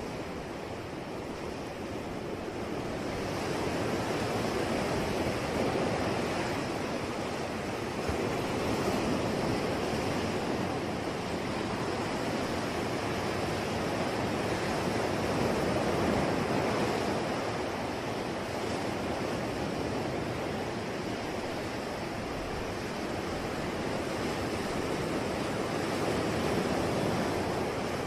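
Ocean waves washing on a shore, a steady surf rush that swells and eases every few seconds.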